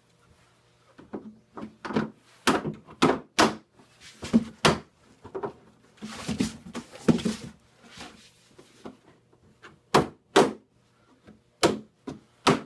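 Irregular hollow knocks and clunks of a molded plastic two-step stool being set down and pressed together during assembly, with bunches of knocks a couple of seconds in and again near the end.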